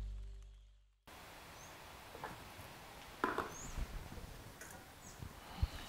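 Music fades out in the first second, then faint kitchen sounds at a sink: a few light clinks of dishes and utensils, the loudest about three seconds in, with several faint high chirps.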